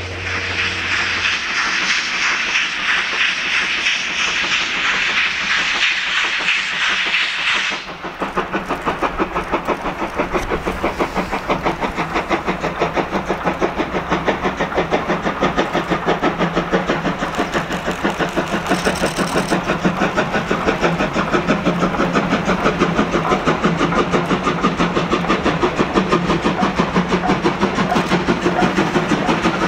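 A steady high hiss that cuts off abruptly about eight seconds in. Then the C56 160 steam locomotive is working, its exhaust chuffing in a quick, even beat that grows louder as it approaches and passes.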